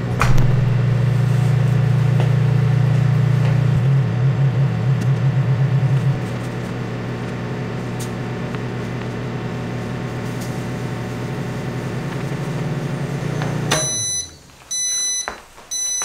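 Microwave oven running with a steady low hum while heating hot peppers. The hum briefly pulses about four seconds in, then runs a little quieter. It stops near the end, and three short high beeps signal the end of the cooking cycle.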